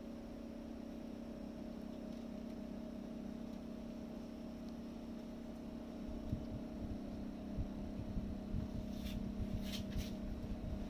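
Panasonic CW-P28CA2 window-type inverter air conditioner's compressor running with a steady hum. A low, uneven rumble grows louder about six seconds in. The owner takes this for an abnormal resonance and likens it to someone riding a motorcycle in the room, speeding up and slowing down.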